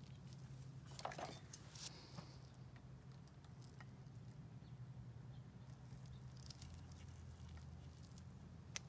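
Near silence over a low steady hum, with a few faint clicks and light scrapes of small metal parts: a circlip being worked onto the air compressor motor's shaft with a small hand tool. The clicks fall about a second and two seconds in, and once more near the end.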